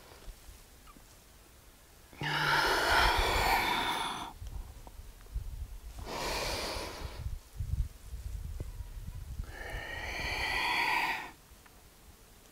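A woman breathing deeply and audibly: three long breaths a few seconds apart, the first the loudest, paced with slow cat-cow yoga movements.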